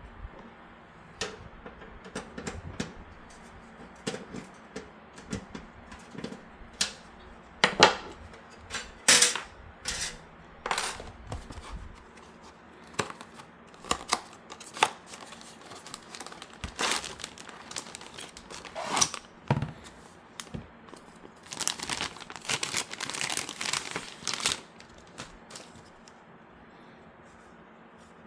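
Irregular clicks, knocks and rustling as a riser cable and mounting bracket are handled and fitted into a PC case, with a dense run of rustling and clatter near the end.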